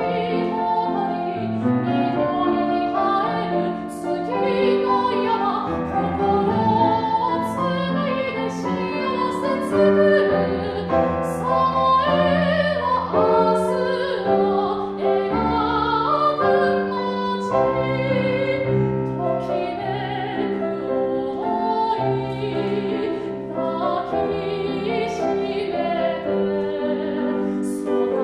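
A woman singing a Japanese song in a classical, operatic style, accompanied by a grand piano.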